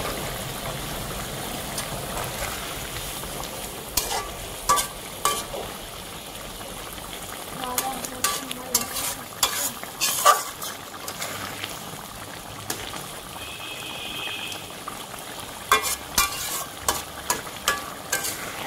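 Fish curry simmering and bubbling in a metal karai, with a flat metal spatula stirring through it and scraping and clacking against the pan in three spells: about four seconds in, around the middle, and near the end.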